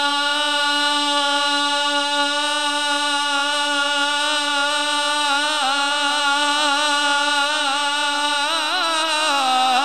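A man singing an Urdu naat, unaccompanied, drawing out one long held note with a slight waver. He breaks into ornamented runs about five seconds in and again near the end.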